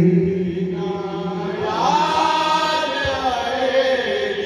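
Men's voices chanting a noha without instruments, drawing out long held notes of the refrain; near the middle a voice glides up and holds a higher note.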